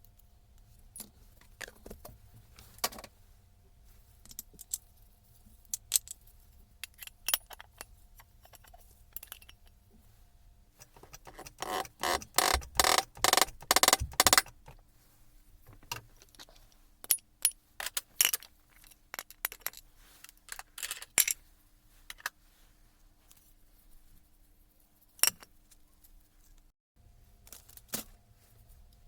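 Metal tools and small metal parts clinking and clattering on a bench. Near the middle comes the loudest part, a quick run of evenly spaced metallic clicks lasting a couple of seconds, with scattered single clicks before and after.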